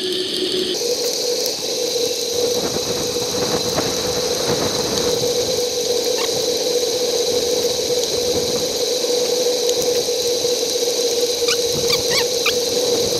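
Sped-up riding noise from a bicycle-mounted action camera: wind and tyre noise turned into a steady, high hum that steps up in pitch less than a second in. A few short chirps sound near the end.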